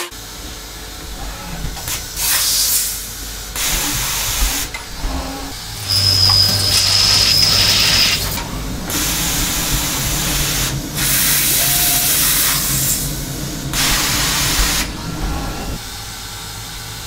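Hoffmann indexable carbide drill (21.7 mm, aluminium inserts) drilling dry into a 6082 aluminium block on a Hermle C400 machining centre at 2,900 rpm: a hissing cutting noise with chips spraying, coming in repeated bursts of one to two seconds with short gaps. A thin high whine runs for about two seconds near the middle, and the noise drops back near the end.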